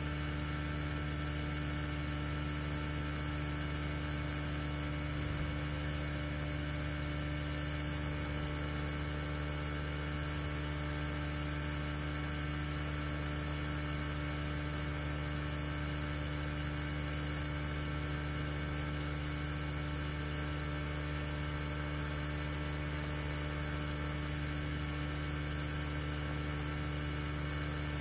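Steady low electrical hum, like mains hum picked up by the recording, with a constant hiss over it.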